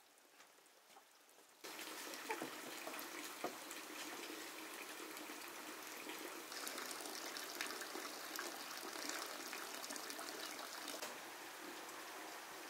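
Water noise: a steady, even hiss that starts abruptly about two seconds in, with a few sharp clicks soon after, and grows brighter and hissier for a few seconds in the middle.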